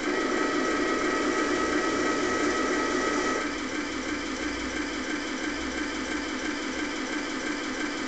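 RC model tank's sound unit playing a steady simulated engine idle through its speaker, joined by the whine of the gun barrel's elevation drive as the barrel lowers. The whine stops about three and a half seconds in, leaving the idle alone.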